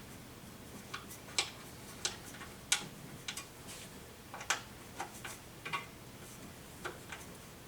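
Allen wrench turning hex screws into the TV stand's frame: a dozen or so sharp metal clicks and ticks at irregular intervals, some in quick pairs, as the key is turned and reseated.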